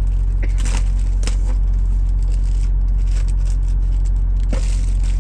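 Plastic packaging crinkling and rustling in bursts as it is handled, over the steady low drone of an idling semi-truck diesel engine.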